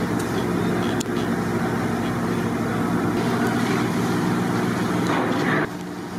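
Steady mechanical drone made of several low hums over a noisy rush, dropping sharply in level about five and a half seconds in.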